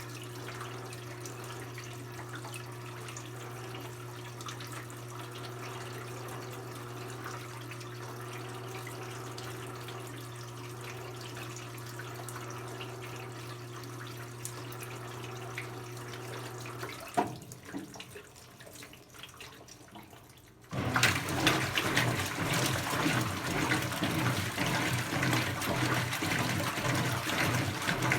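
Brastemp BWK17 17 kg washing machine partway through its quick cycle: a steady electric hum, then a click about 17 seconds in and a few quieter seconds. About 21 seconds in, loud rushing, splashing water starts and keeps going.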